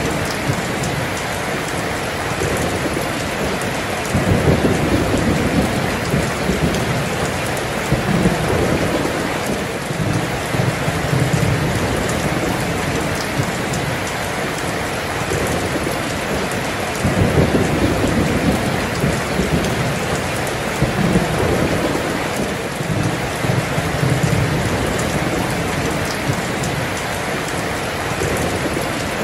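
Heavy rain pouring steadily onto the street, with low rumbles of rolling thunder that swell and fade several times, the strongest about four and seventeen seconds in.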